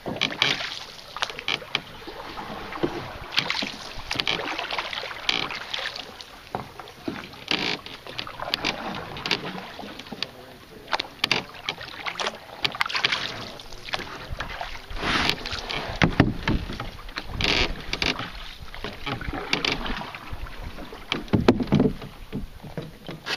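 Canoe paddling: the paddle dips and pulls through the water in uneven splashy strokes, with drips and a few sharp knocks and low thuds.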